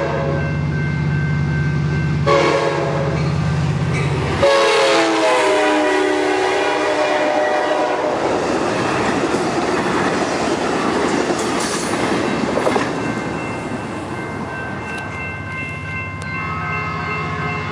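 Amtrak Pacific Surfliner train approaching with its chime horn sounding over the diesel engine. The horn drops in pitch as the locomotive passes, about four and a half seconds in, then the double-deck passenger cars rumble and clatter by and fade. Near the end a second train's horn starts up: an approaching Metrolink train.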